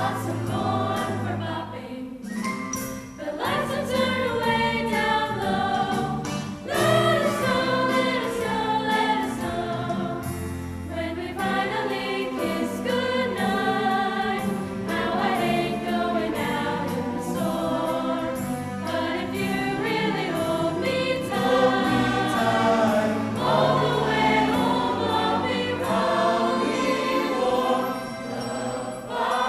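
Choir singing a holiday song with instrumental accompaniment, the voices moving through a melody without a break.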